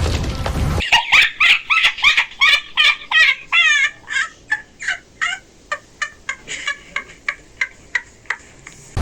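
Loud noisy audio cuts off suddenly just under a second in. A long string of short, high, squawking calls follows, rapid at first, then spacing out and growing fainter.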